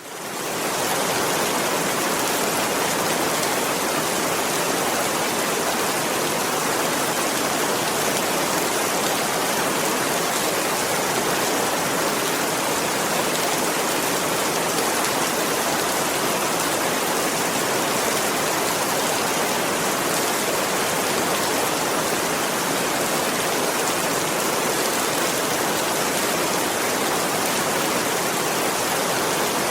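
Steady rain, an even hiss, fading in over the first second.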